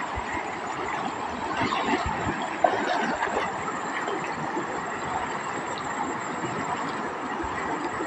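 Shallow river water rushing over rapids, with splashing as a person wades through it. A single sharp click about two and a half seconds in is the loudest moment.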